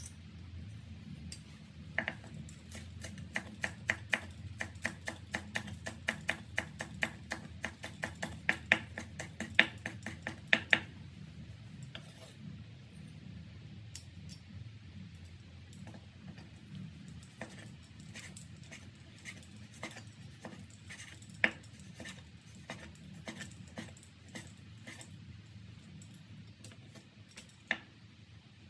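Steel cleaver chopping green onions on a wooden cutting board. A quick, even run of chops, about three or four a second, lasts for around nine seconds, then gives way to slower, scattered knocks on the board.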